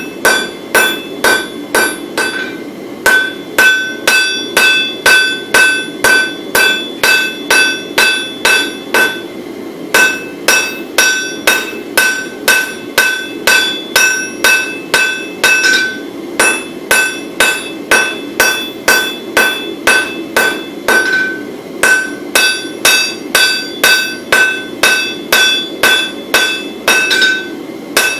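Hand hammer forging a glowing bar of wootz crucible steel on an anvil: steady blows about two a second, each with a ringing anvil tone, broken by a few short pauses. A steady low rushing noise runs underneath.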